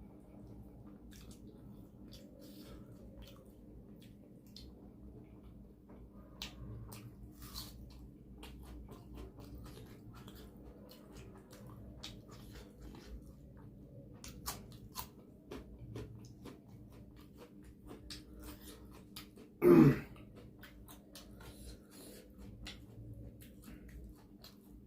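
Close-miked chewing and biting of food, with many small wet clicks and crunches of the mouth and cutlery. About twenty seconds in, a single short, loud pitched sound stands out above the eating.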